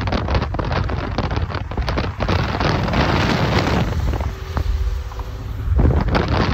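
Wind buffeting the phone's microphone at a moving car's side window, over road and tyre noise. About four seconds in the buffeting eases for a moment and a faint steady hum shows through, then the wind rushes back in.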